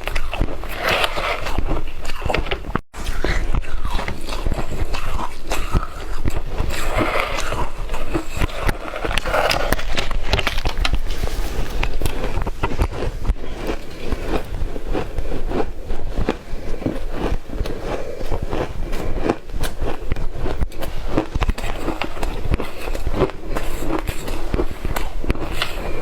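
Shaved ice being bitten and chewed, a dense, continuous run of crisp crunches with a brief pause about three seconds in.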